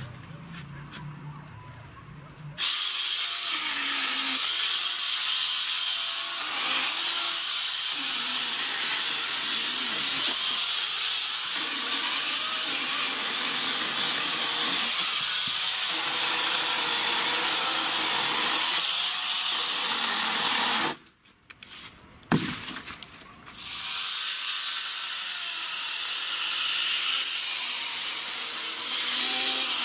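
Makita cordless angle grinder fitted with a chainsaw bar-and-chain attachment, running and cutting through a log with a steady high-pitched rasp. It starts about two and a half seconds in, stops for a couple of seconds past the middle with a single sharp click, then starts and cuts again.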